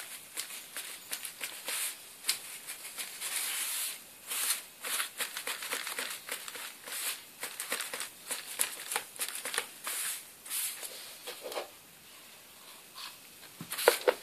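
Stiff paper rustling and crinkling under hands and a paintbrush, in a dense series of short, irregular scrapes.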